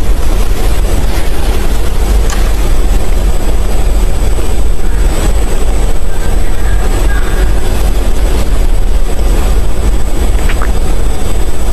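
Loud, steady low rumble of running engines, with no let-up.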